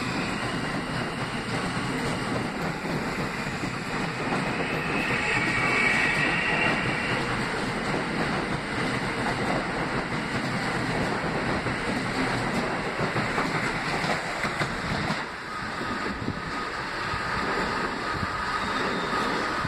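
An R160B subway train with Alstom propulsion departs and passes close by. Its wheels rumble steadily on the rails, with a high wheel squeal rising about five seconds in. After the last car goes, a thinner squeal lingers as the train moves off.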